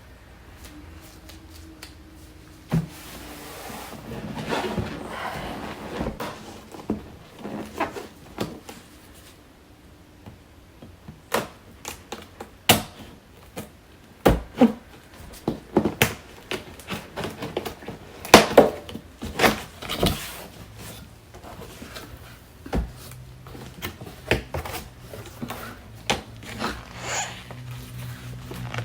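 Irregular knocks, taps and rustling from handling a nutribullet blender's box, packaging and plastic parts during unboxing.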